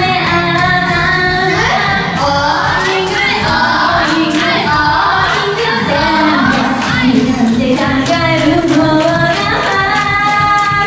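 A woman singing an upbeat Japanese idol-style pop song into a microphone over a karaoke backing track with a steady beat, as the room claps along.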